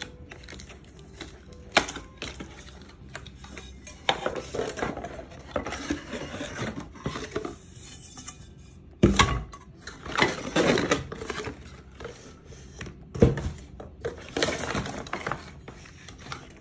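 Cardboard packaging rustling and scraping as nested cast-aluminium frying pans are lifted out of their box, with a few sharp knocks, two of them heavy in the second half as pans are set down.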